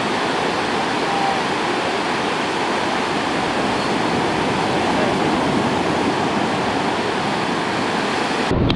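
Sea surf breaking and washing up the beach, a steady rushing noise. Near the end it switches abruptly to a low rumble.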